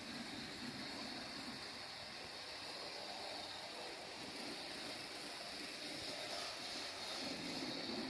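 A 40-year-old N-scale model train running on its track: the locomotive's small electric motor whirring and the wheels rolling steadily, a little louder near the end.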